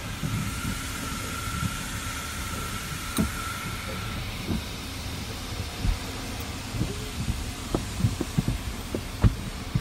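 Automatic car wash heard from inside the car: a steady low rumble with a thin steady whine for about the first four seconds, then irregular dull thumps in the last few seconds.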